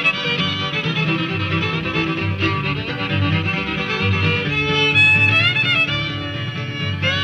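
Bluegrass string band recording: a fiddle plays the instrumental introduction, sliding between notes, over a steady rhythm accompaniment.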